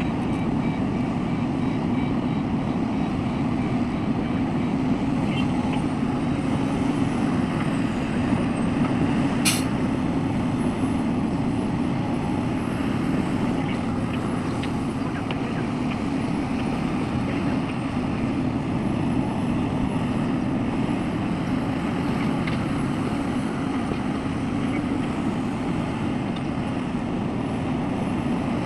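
Heavy diesel earthmoving machinery running steadily, a continuous low engine drone, with a single sharp click about ten seconds in.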